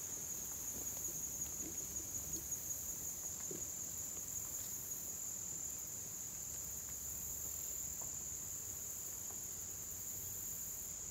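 Steady chorus of crickets in the woods, a continuous high-pitched trill. In the first few seconds there are faint rustling steps through the undergrowth.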